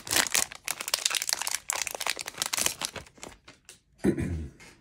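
Plastic wrapper of a Topps baseball card pack crinkling and crumpling as it is opened and pulled off the cards, thick for about three seconds and then thinning out. A brief voice sound comes about four seconds in.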